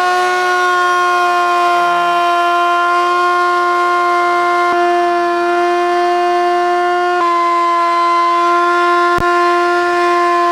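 Table-mounted router running at high speed as a curved wooden piece is pushed past its bit: a steady, high whine whose pitch steps slightly lower about seven seconds in. A single sharp click comes near the end.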